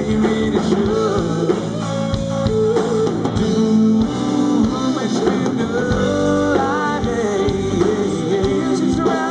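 Live band playing a rock/blues-style song: electric and acoustic guitars over a drum kit.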